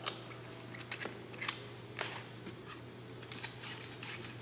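Handling noise of fire hose being folded into a fire engine's bumper hose tray: soft scuffs and a scattering of short clicks and knocks, about one every half second, over a faint steady low hum.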